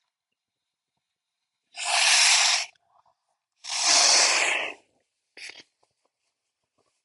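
A man sneezing loudly twice, each sneeze about a second long, followed by a short, quieter breath sound.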